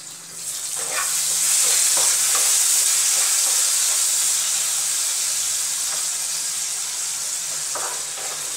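Food frying in oil in a covered pan, the sizzle swelling loudly as the glass lid comes off about half a second in, then slowly easing. A wooden spatula scrapes and stirs through it a few times.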